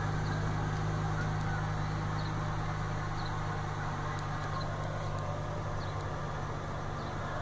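Ford F-350 pickup's engine idling steadily, heard from inside the cab.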